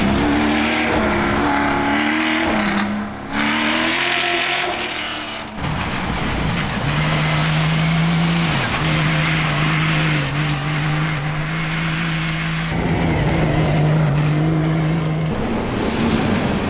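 Rally raid car engines running hard. For the first five seconds or so the pitch rises and falls as the revs change; then a single engine note holds steady at high revs for about nine seconds.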